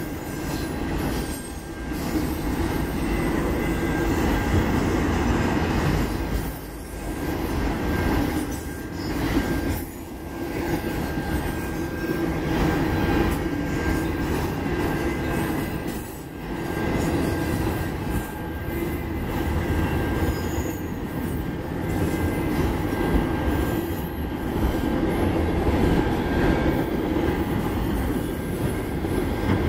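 Autorack freight cars rolling past, their steel wheels rumbling and clattering on the rails, with a steady high-pitched tone running through it. The loudness dips briefly every few seconds as car ends go by.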